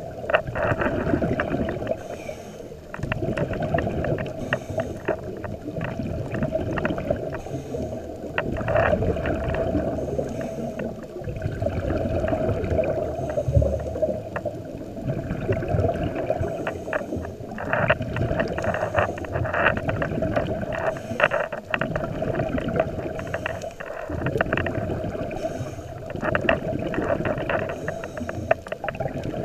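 Scuba diver breathing through a regulator, heard underwater: hissing inhalations and bubbling, crackling exhalations that swell and fade in a repeating cycle every few seconds.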